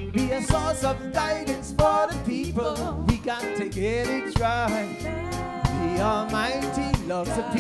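Live reggae band playing: heavy bass notes and regular drum hits under a wavering, sliding melodic lead.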